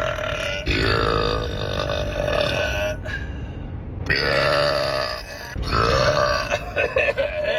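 A man belching a string of long, drawn-out, loud burps, one after another, with a short break about three seconds in.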